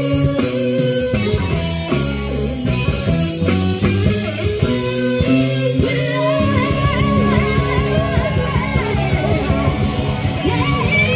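Live band playing through a festival stage sound system: guitar and bass lines over drums, with a voice singing from about halfway in.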